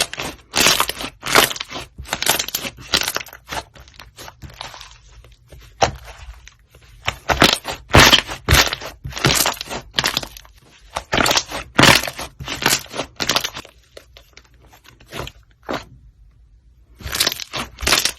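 White slime being squished and pressed by hand, giving a run of short crackling, crunchy bursts about two a second. There is a quieter stretch with a single crackle about two-thirds through, then the crackling starts again near the end.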